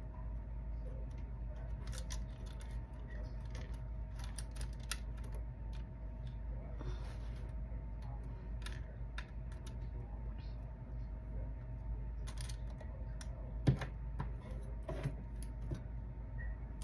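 Scattered small clicks and taps of beaded and metal jewelry pieces being handled and pressed onto a jewelry tree, with one louder knock about two-thirds of the way through, over a steady low hum.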